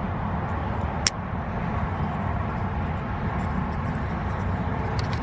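A folding pocket knife's blade snapping shut, one sharp click about a second in and a fainter click near the end, over steady low outdoor background noise.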